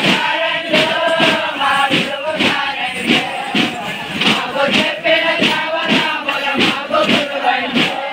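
Thappeta Gullu folk music: a group of men chanting a song together over hand-beaten thappeta frame drums, struck in a steady beat about twice a second.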